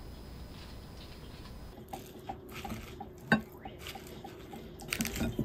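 Wooden spoon mixing rice, vegetables and sauce in a ceramic bowl: soft squishing and scraping, with one sharp clack of spoon on bowl past the middle and a quick cluster of knocks near the end.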